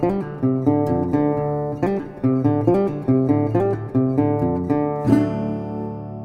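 Intro theme music: an acoustic guitar strummed in a steady rhythm, ending on a final chord about five seconds in that is left to ring.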